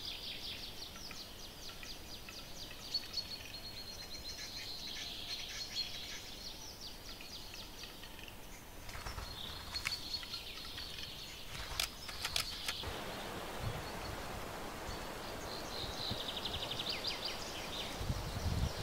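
Male western capercaillie displaying: phrases of rapid scraping ticks, the whetting part of its lek song, come several times. A few sharp clicks sound about twelve seconds in.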